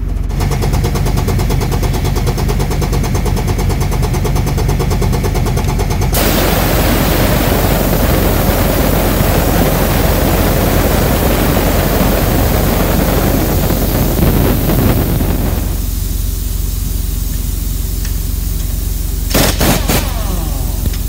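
Heavy-duty pneumatic impact wrench hammering on the lug nuts of a semi truck's front wheel as they are loosened for a tire change. It goes as a rapid, even hammering for the first few seconds, turns into a louder, denser rattle, and eases off after about fifteen seconds.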